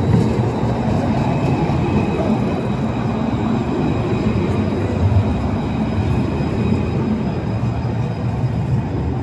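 Citadis low-floor tram passing close by on a curve: a steady rumble of steel wheels on rail, with a faint high-pitched ringing tone above it.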